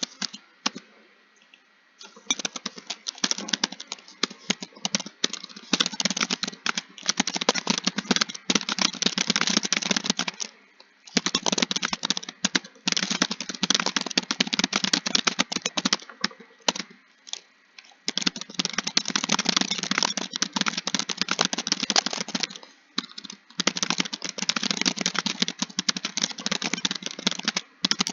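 Computer keyboard typed on quickly in long runs of rapid keystrokes. The typing starts about two seconds in and breaks off briefly a few times.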